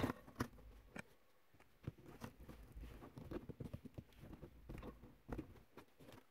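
Faint, scattered clicks and rustling from fingers pushing a mirror's power wire up into the gap at the edge of the car's headliner, with cable and plastic trim being handled.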